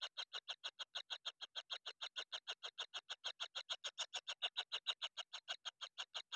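Kingfisher nestlings giving a fast, even, unbroken train of short begging notes, about eight a second.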